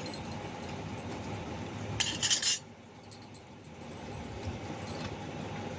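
A short, loud clatter of kitchen utensils about two seconds in, over steady low background noise.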